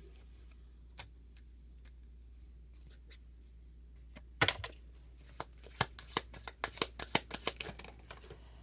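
A deck of tarot cards being shuffled and handled: one soft click about a second in, then from about halfway a quick run of crisp card snaps and flicks, a few each second, until shortly before the end.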